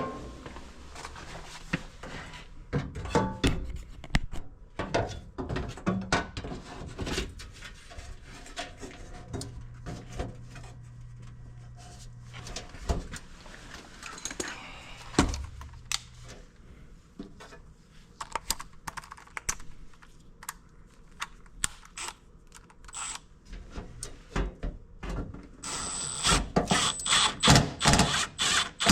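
Sheet-metal furnace access door being handled and fitted back onto the cabinet: irregular clicks, knocks and thunks of metal panel work, turning into a denser, louder clatter near the end.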